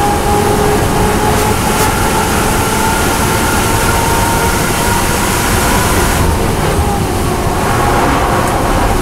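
Inside the cabin of a BMW M240i Racing Cup car, its turbocharged 3.0-litre straight-six pulls hard at full throttle in fifth gear. About six seconds in, the engine note eases as the driver lifts off and brakes, dropping to fourth.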